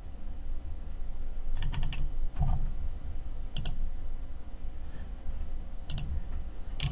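Computer mouse and keyboard clicks: a few sharp clicks in small clusters, some in quick pairs, over a steady low background hum.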